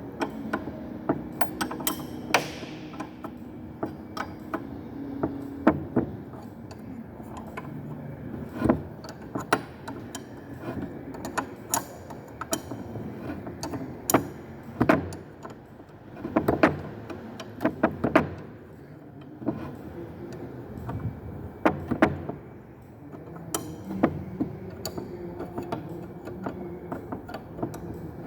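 Irregular metallic clicks and clinks of a spanner working a nut on a truck gear lever assembly, tightening it, over a steady low hum.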